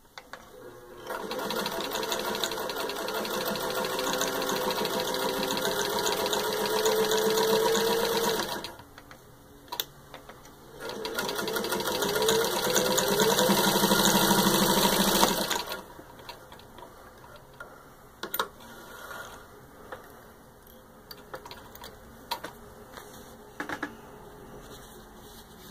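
Vintage Singer 15-91 sewing machine running under its electric motor, stitching through six layers of denim. It sews in two runs of several seconds each, the first speeding up slightly, with a short pause and a click between them. After the machine stops, a few small clicks follow.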